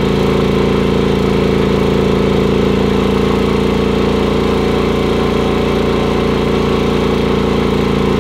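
Predator 9500 inverter generator's engine running steadily under an electric space-heater load, a constant even hum that holds one pitch.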